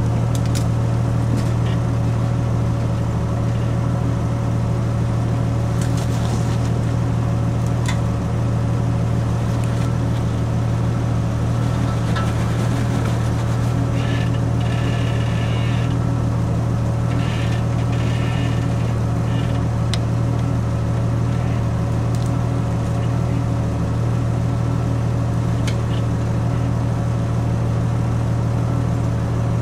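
Jeep Wrangler JK's 3.8-litre V6 running steadily at low revs as it crawls over rock. A few brief higher-pitched sounds come and go around the middle.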